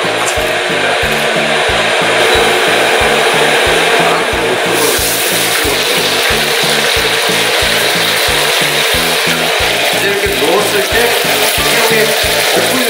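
Batter-coated shrimp deep-frying in hot oil in a wok: a steady sizzling hiss that grows brighter about five seconds in. Background music with a steady beat plays underneath.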